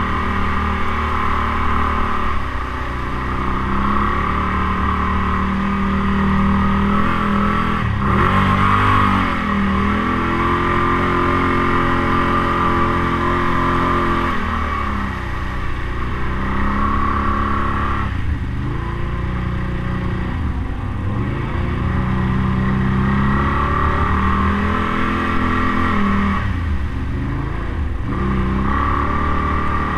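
Can-Am ATV's V-twin engine pulling hard through deep water, its revs falling and rising again several times with the throttle, over the steady wash of water splashing around the machine.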